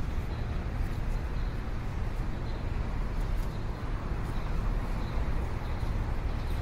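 Steady low rumble of city ambience, like distant traffic, with no distinct events.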